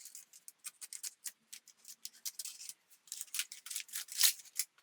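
Parcel packaging being cut open: an irregular run of light, crisp snips and scratches, coming thickest about three seconds in.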